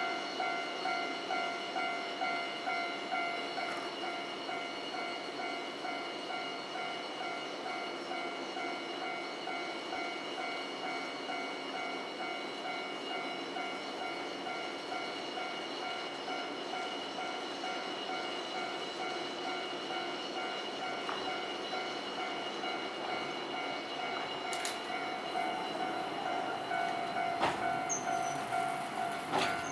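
Japanese level-crossing warning bell ringing steadily, about two clangs a second, for the Ikoma funicular. Near the end a few sharp clicks and a rise in level come in as the cable car reaches the crossing.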